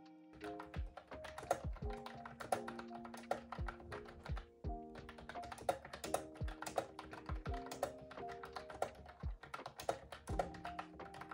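Fast, continuous typing on a keyboard with round, typewriter-style keycaps: a dense clatter of key clicks, over background music with sustained notes.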